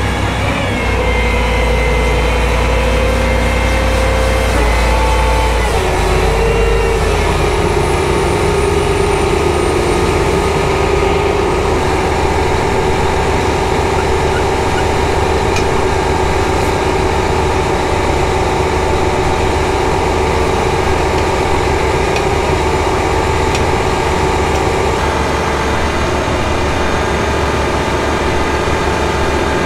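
John Deere 8335RT tractor's diesel engine running. Its pitch drops a step about five seconds in, then holds steady.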